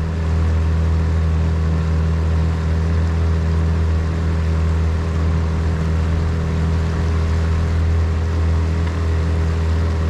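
Small boat's outboard motor running steadily at trolling speed, heard from on board as a constant low drone.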